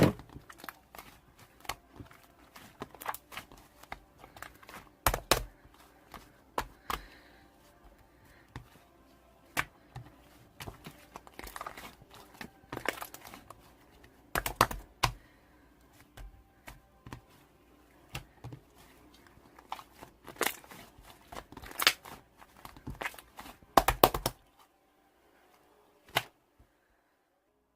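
Slime being squeezed, stretched and poked by hand, giving irregular sticky pops and clicks of varying loudness. They stop near the end, with one last click after.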